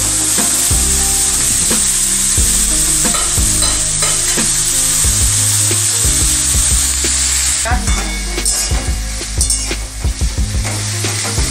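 Chopped green beans and carrots sizzling in oil and ghee in a kadai, stirred and turned with a spatula that scrapes the pan. The steady sizzle hiss eases about eight seconds in, leaving separate spatula scrapes.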